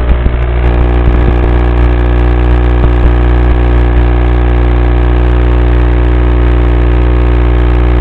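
A loud, steady electrical buzz made of many fixed tones, typical of the audio channel of an analog FPV video link on a micro quadcopter. A few short knocks come in the first second or so, as the craft is handled.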